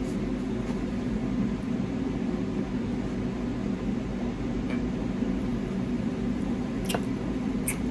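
A fan runs steadily with an even hum and hiss, broken by a few faint clicks near the end.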